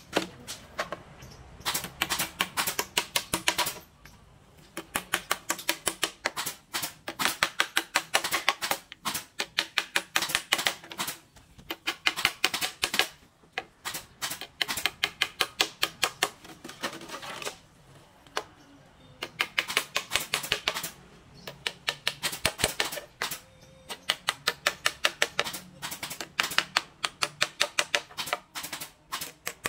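Runs of fast, sharp clicks, about ten a second, each run a second or two long with short breaks between.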